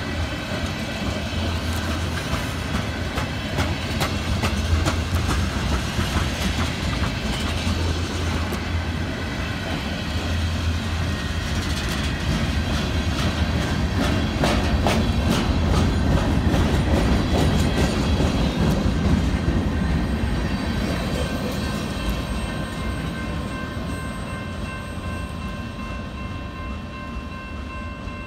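Slow freight train's tank cars and covered hoppers rolling past with the brakes applied on wet rail: wheels clicking over rail joints above a steady rumble, fading over the last several seconds as the end of the train goes by.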